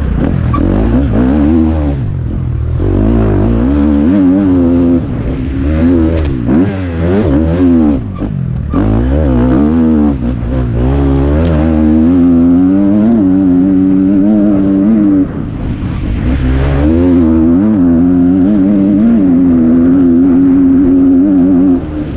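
KTM 250 SX-F four-stroke single-cylinder dirt bike engine under hard riding, its pitch rising and falling over and over as the throttle is opened and closed, with brief drops about eight and fifteen seconds in. Heard from the rider's helmet.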